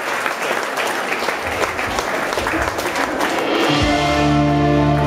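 Audience applause with scattered claps, then about two-thirds of the way in the band comes in with a held low chord that opens the song and keeps sounding.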